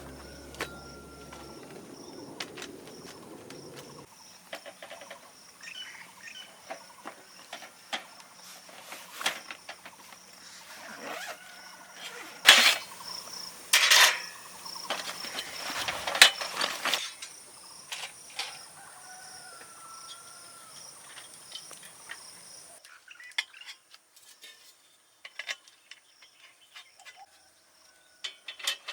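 Crickets chirping steadily, with scattered clicks and knocks of gear being handled, loudest between about 12 and 17 seconds in. The insect sound drops away about 23 seconds in, leaving only occasional clicks.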